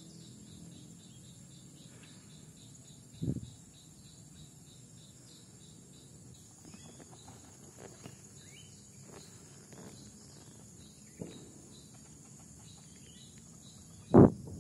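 Crickets chirping in an even, quick high train over a steady high insect drone. Two low thumps break in, a soft one about three seconds in and a louder one near the end.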